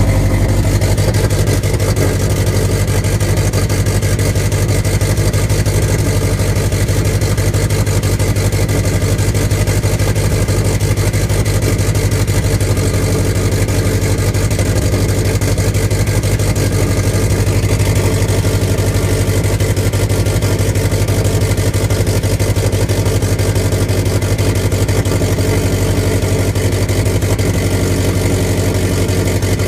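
2008 Subaru Impreza WRX STI's turbocharged flat-four boxer engine idling steadily with a rough idle on a cold start, a fault its owner is still diagnosing.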